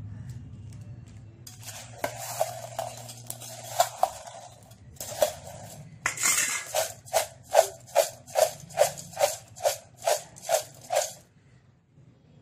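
A metal spoon scraping and stirring crisp fried bread pieces in a steel bowl, then, about halfway through, tapped against a perforated steel plate about a dozen times in a steady rhythm, two to three a second.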